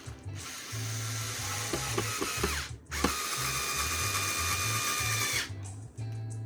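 Small cordless screwdriver or drill driving screws in two runs of about two and a half seconds each, with a short stop between them and a steady motor whine.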